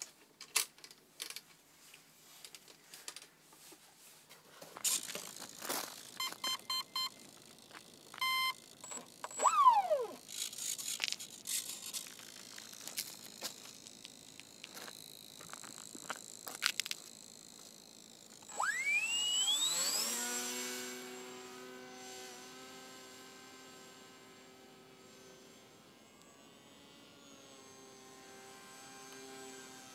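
Electric motor and pusher propeller of a foam RC model plane. After some handling clicks and a few short electronic beeps, the motor spools up about 18 seconds in with a steep rising whine to full throttle at launch. It then settles into a steady hum that fades as the plane climbs away.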